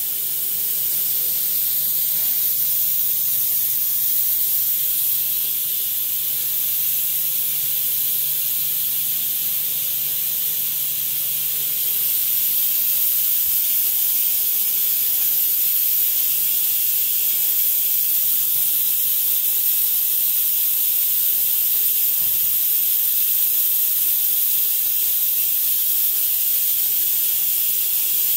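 A steady, high-pitched hiss, like escaping air, with a faint low hum underneath that changes pitch about twelve seconds in.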